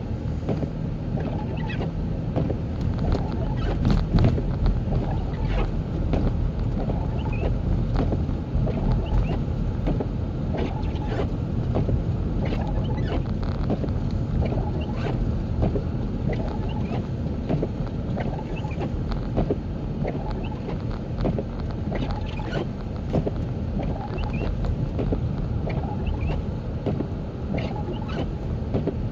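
Car driving on a snowy road: a steady low rumble of road and engine noise with scattered light clicks and crackles.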